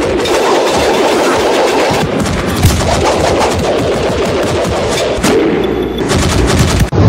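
A loud, dense run of rapid sharp cracks and knocks, following one another without a break.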